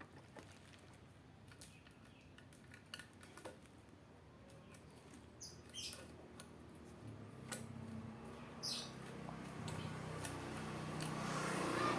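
Faint, scattered light clicks and clinks of small metal parts being handled, with a few short high squeaks in the middle.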